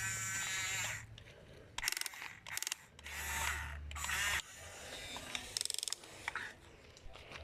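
Small electric motors and plastic gearboxes of a remote-control toy excavator whirring in several short bursts as its arm and bucket are worked.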